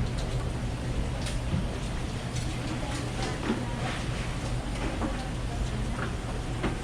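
Busy food-stall background: a steady low hum with scattered light clicks and faint voices.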